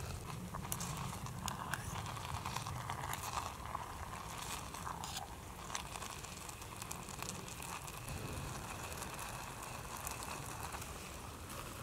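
Metal spoon stirring rice in a metal camping pot, light irregular clicks and scrapes against the pot's side, over a faint steady background.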